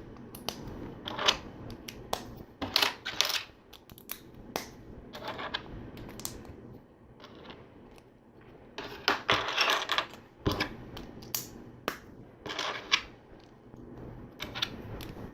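Small plastic LEGO pieces being handled and snapped together, a string of sharp clicks and light clatter, busier about nine to ten seconds in.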